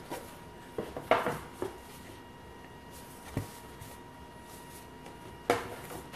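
Thick cardboard game tiles being lifted from a box, turned over and set down: a handful of light knocks, taps and rustles, the loudest near the end.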